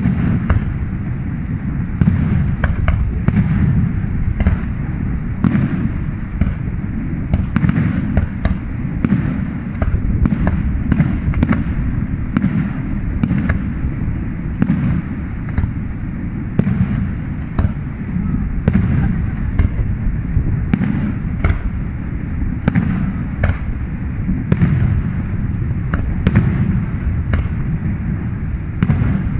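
Fireworks display: a steady run of sharp bangs and pops, often several a second, over a continuous low rumble.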